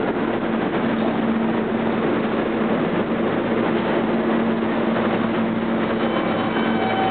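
R160B subway train standing at the platform with its equipment humming steadily. About six seconds in, several high whining tones from its traction motors start as it begins to pull out.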